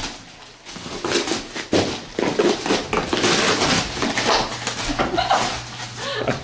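A dog tearing and crunching into a gift-wrapped cardboard box with its teeth: continuous irregular ripping and crackling of paper and cardboard.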